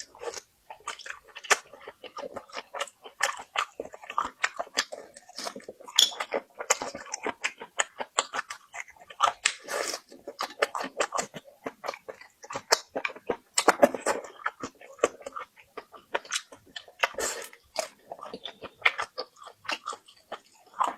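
Close-miked chewing and crunching of river shrimp: irregular, crackly crunches from a mouthful of crisp shrimp, with bites in between.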